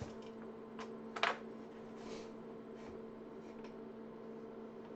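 A few computer keyboard key clicks, the loudest about a second in, as Ctrl-Alt-Del is pressed to restart the IBM PS/2 Model 85, over a steady electrical hum.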